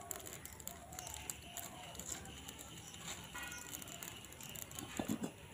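Faint crackling of dry sticks catching fire in a clay mud stove as it is being lit, with a couple of soft knocks near the end.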